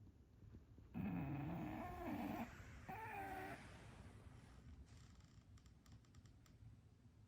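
An English bulldog vocalising in its sleep, the kind of whimpering that goes with a possible bad dream. It gives two wavering, drawn-out moans, a longer one about a second in and a shorter, higher one near three seconds in, followed by a few faint clicks.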